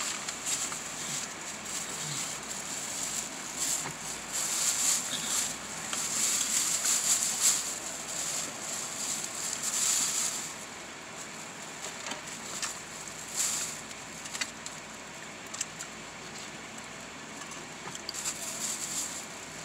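Plastic carry-out bag and paper food wrappers rustling and crinkling as trash is gathered into the bag. It is busiest for about the first ten seconds, then only occasional crinkles.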